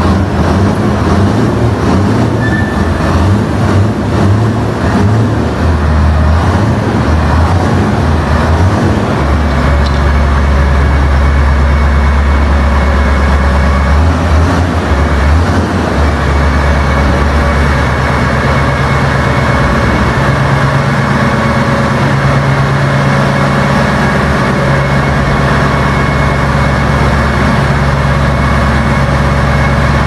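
Bernardini Tamoyo tank's diesel engine running loud and steady, its speed stepping up and down several times as it is revved.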